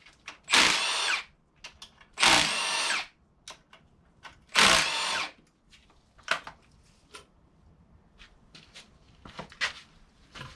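A cordless power driver runs in three short bursts, each under a second, spinning fasteners loose on the engine. Light clicks and clinks of metal parts follow.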